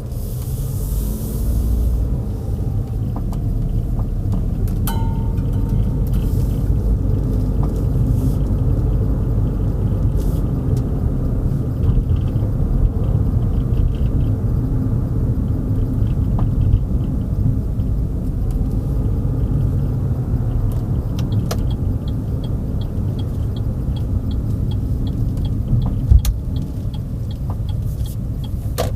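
Car driving, heard from inside the cabin: a steady low rumble of road and engine noise, with a few scattered clicks and a run of light, regular ticks in the last few seconds.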